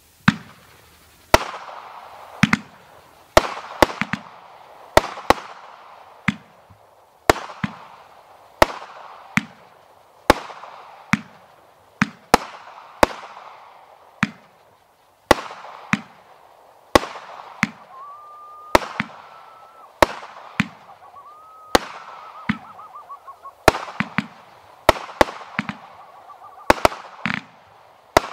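World Class Fireworks 'Chickaboo' firing a steady run of shots, a sharp bang about every second or so, each trailing off in a fading crackle. A short whistling tone sounds twice in the second half.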